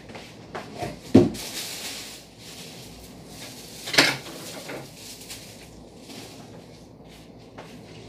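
Packaging being handled while a vacuum cleaner is unpacked: a low thump about a second in, a second of rustling, then a sharp knock about four seconds in and a few lighter clicks.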